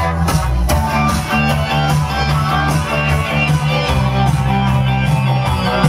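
Loud dance music played over a sound system: a steady beat with a heavy bass line and guitar, without vocals.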